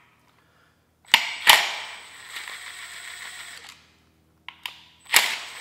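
Cordless impact driver running in two bursts, backing out the screws that hold the encoder on the end of a Hyper9 electric motor: a sharp start about a second in and a run of about two and a half seconds, then a second run starting near the end, each with a steady high whine.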